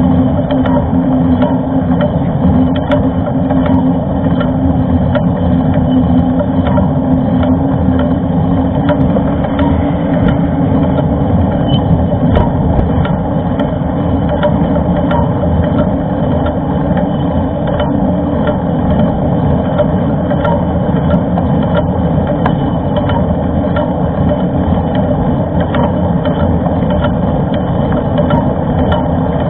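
Steady rushing wind and riding noise on a bike-mounted or helmet-mounted camera microphone during a mountain-bike ride, with scattered sharp clicks and rattles.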